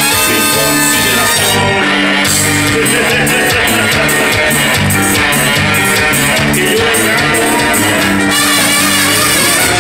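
Live technobanda music played loud: trumpets, trombones and saxophone over drums and electric bass, with a steady beat.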